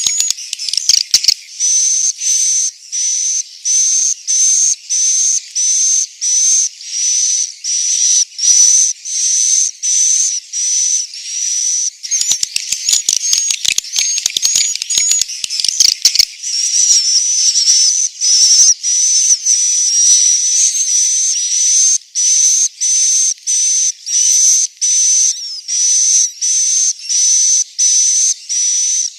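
Edible-nest swiftlets' roosting calls: high, rapid twittering chirps repeated in pulses a little more than once a second, with a denser stretch of continuous twittering around the middle.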